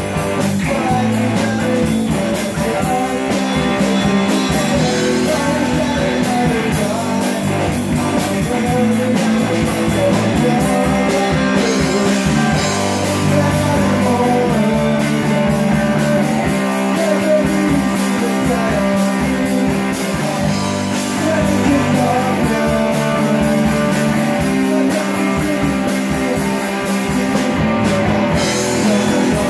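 Live rock band playing a song: electric guitar, electric bass and drums, with a man singing lead.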